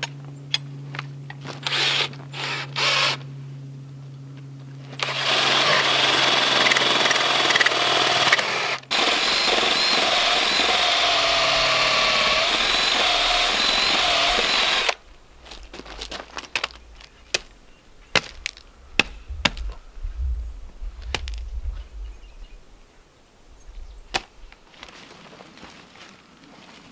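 Cordless drill with a long auger bit boring through a thick wooden block, drilling out the hole where a broken handle sat. It starts with a few short trigger bursts, then bores continuously for about ten seconds with a brief stop partway. Then it stops, and footsteps crunch through dry leaves and twigs, with sharp snaps.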